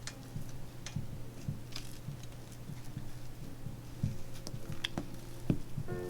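Light clicks and taps of small tools and a smartphone being handled, irregular and a second or so apart, over a steady low hum.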